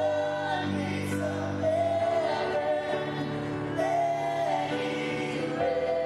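Worship team singing a slow praise song in held, drawn-out notes over sustained chords that change about every two seconds.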